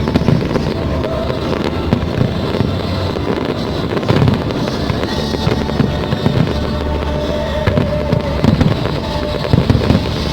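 Aerial fireworks going off in quick succession, a dense run of bangs and crackle, over music playing along with the display.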